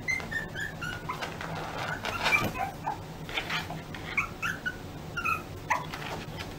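Small puppy whimpering and yipping in a string of short, high squeaks, with a louder scuffling noise a little after two seconds in.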